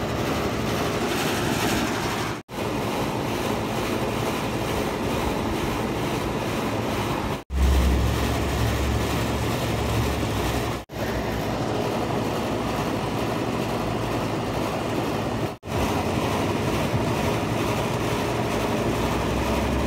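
Steady rushing outdoor noise with low rumbles, broken by four brief dropouts where clips are joined.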